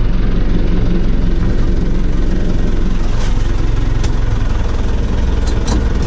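Caterpillar 426 backhoe loader's diesel engine running steadily, heard from inside the cab.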